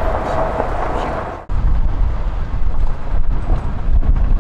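Wind buffeting an outdoor microphone, with a sudden break about a second and a half in, after which the low wind rumble is heavier.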